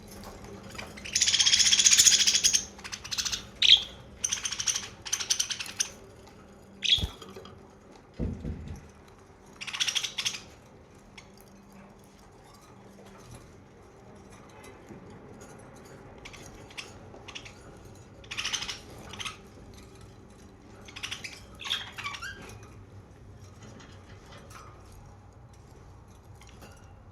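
Pet budgerigars chirping and chattering in short bursts, loudest in a burst of chatter about a second in, then scattered calls with quiet gaps. Two low thumps come around seven and eight seconds in.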